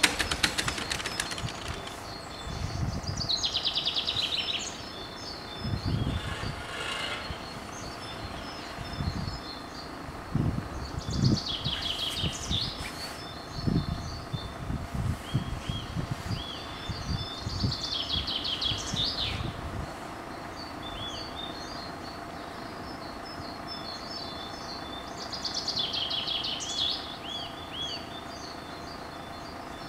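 Songbirds singing in short bursts every several seconds, with faint chirps in between, over a faint steady hum. Irregular low rumbles come and go until about twenty seconds in.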